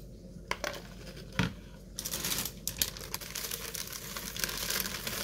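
Close-up chewing of a mouthful of crunchy Kellogg's Special K Pumpkin Spice cereal in milk: a few sharp clicks in the first second and a half, then dense crackly crunching from about two seconds in.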